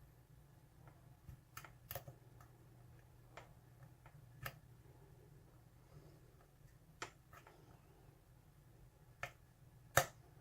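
Scattered light metallic clicks and taps of a lock pick working the pins inside a pin-tumbler padlock, irregularly spaced, with the loudest click near the end.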